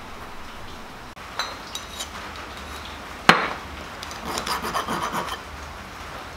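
A hand tool scraping and filing along the edges of a machined billet aluminium part, in short strokes, with one sharp metallic knock a little past halfway.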